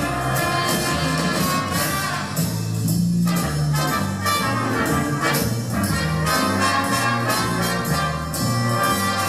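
Lively dance music with brass, a steady beat and a moving bass line.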